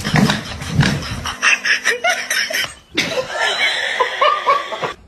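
People laughing and snickering, in two stretches broken by a brief gap about three seconds in.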